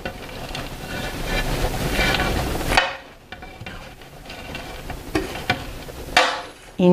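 Chopped fresh herbs being scraped with a spoon off a ceramic plate into a pot of simmering soup: a dense rustling noise for the first three seconds or so, then softer scrapes and light clicks of the spoon against the plate and pot.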